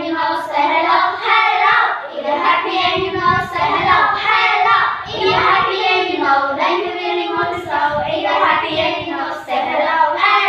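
A small group of young girls singing a children's song together.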